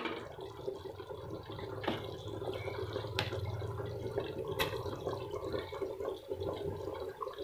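Thick beef trotter curry simmering in a pot, its bubbles popping and blipping, with a few sharper pops, over a low steady hum.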